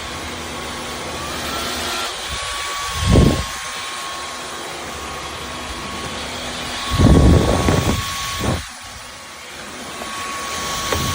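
Dyson V15 Detect cordless stick vacuum running with a steady high whine that briefly steps up in pitch near the start, with two louder rushing surges about three seconds in and again around seven to eight seconds.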